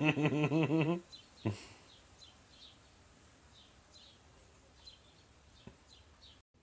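A person's voice in a quick pulsing run for about the first second, then a single thump. After that come faint short high chirps every half second or so.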